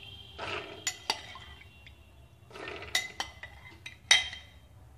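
Soaked white peas tipped from a glass bowl into a metal pressure cooker, a spoon clinking against the glass and metal as they are scraped out. There are a few short rattling pours with sharp clinks, the loudest clink near the end.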